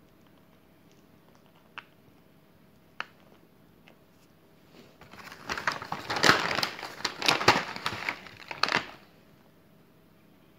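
A plastic food packet being crumpled and crinkled by hand, a dense crackling spell of about four seconds, preceded by a couple of single faint clicks.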